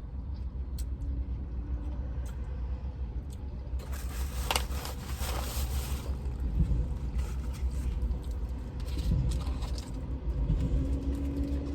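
Low steady vehicle rumble heard inside a parked truck's cabin, with a louder rushing swell about four to six seconds in and a faint hum that slides down near the end.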